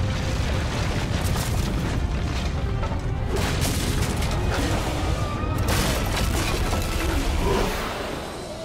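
Cartoon sound effects of a wooden beam smashing apart and debris falling: a loud, continuous rumble with sharper crashes about three and a half and six seconds in, dying down near the end, under music.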